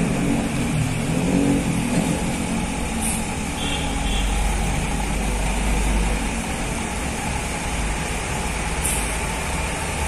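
Coach bus's diesel engine running as the bus manoeuvres slowly on a wet surface. The engine sound is fuller at first and then settles lower, with two short air hisses, one about 3 seconds in and one near the end.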